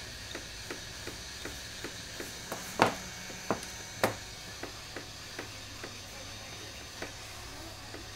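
Heat gun blowing with a steady hiss and hum as it is aimed at a smartphone's display to soften the adhesive. A light, even ticking runs at nearly three ticks a second, and three sharper clicks come about three to four seconds in.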